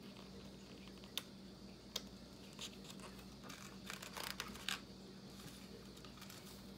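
Pages of a small photo book being turned by hand: soft papery rustles and a few sharp ticks, busiest from about the middle to just before five seconds in. A faint steady low hum sits underneath.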